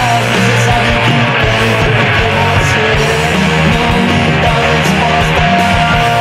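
Loud rock music from a band recording, with guitar, bass and drums playing together steadily.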